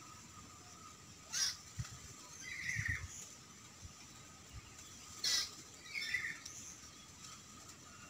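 Oriental magpie-robin (kacer) giving a few short, harsh calls: one sharp call about a second and a half in and another a little after five seconds, with softer chirps in between.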